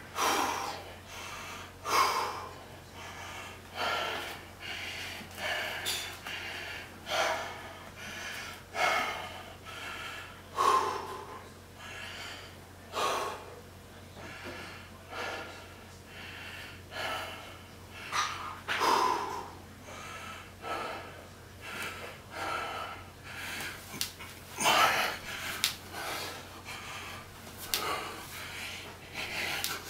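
A man breathing hard through a run of bodyweight squats, heavy gasping breaths about every second or two: he is winded from the exertion.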